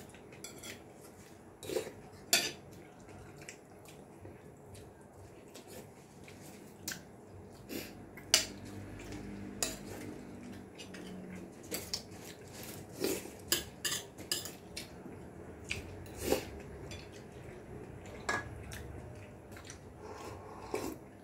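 Scattered clinks and light knocks of spoons, plates and metal bowls during a meal, irregular and spread through the whole stretch.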